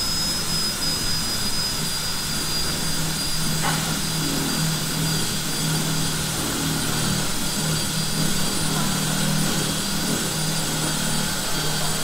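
Cordless drill running continuously as its bit is pressed into the side wall of an old drinks-cooler cabinet, a steady high motor whine. This hole is a tough one to bore through.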